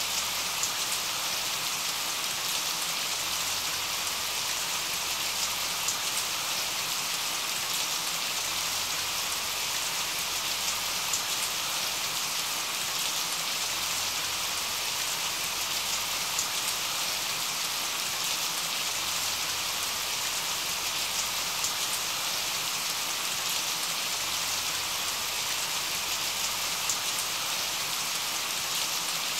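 Steady rain, an even hiss with scattered drop ticks.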